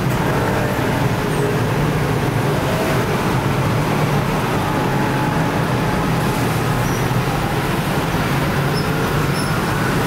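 Steady din of many motor scooters and cars driving across a railway level crossing, their small engines running together.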